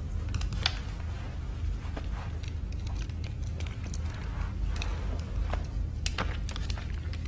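Low steady rumble of room tone in a tense silence, with a few faint clicks and rustles of small movements, several of them close together near the end.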